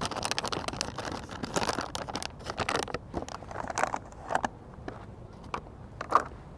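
Crackling and crinkling of a ration pouch being handled and opened, busiest in the first three seconds, then thinning to a few scattered clicks.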